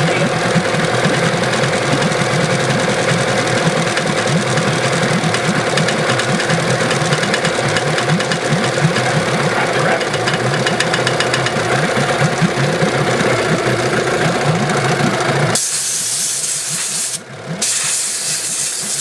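Yamaha 8 hp outboard engine running steadily with a fast even pulse, on a test run after carburettor work to cure its refusal to idle unless choked. About three-quarters of the way through a loud hiss suddenly covers the engine, with a brief break in it shortly after.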